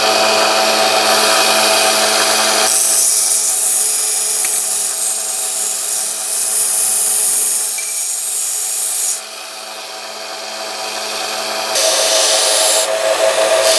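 Delta ShopMaster belt sander running with a steel axe head pressed to its belt, rough-grinding a new bevel: a steady motor hum under a harsh grinding hiss. The grinding eases off about nine seconds in, then builds back up a few seconds later.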